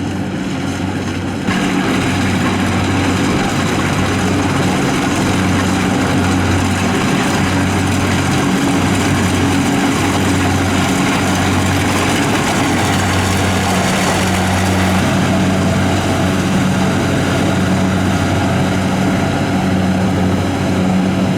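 Combine harvester's engine running steadily under load, with an even low pulsing and a wide mechanical hiss. It gets louder with more hiss about a second and a half in.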